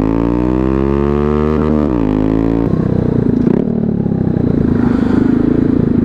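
Honda Grom's single-cylinder engine under way. Its pitch climbs steadily for about two seconds as it accelerates, then drops about two and a half seconds in to a steady lower, choppy note.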